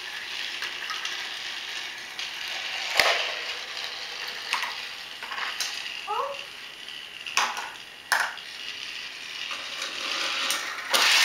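Battery-powered Thomas TrackMaster toy engine running along plastic track with a steady whirring hiss, broken by several sharp clicks and knocks of plastic track pieces.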